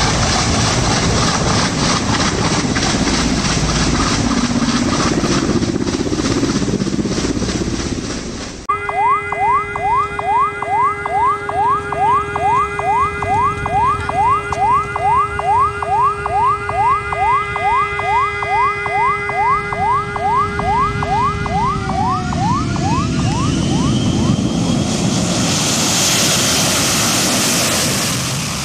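A military helicopter's rotors and engines running as it comes in to land. After a cut about nine seconds in, a twin-engine jet airliner on a low landing approach: a steady engine whine with a fast repeating rising warble, which drops in pitch as it passes overhead. The broad roar of its jet blast follows.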